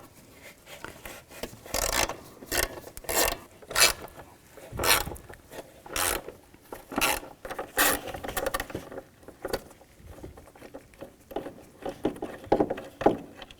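Ratchet with a T25 Torx socket clicking in short, irregular strokes as the hood latch bolts are backed out.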